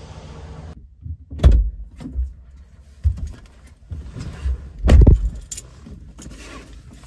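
A person getting into a pickup truck's driver's seat: seat and clothing rustle, keys jangle, and two heavy thumps come about a second and a half and about five seconds in.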